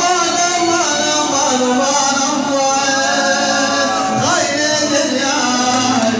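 Male voice singing an Arabic mawwal in long, gliding, drawn-out notes over instrumental accompaniment.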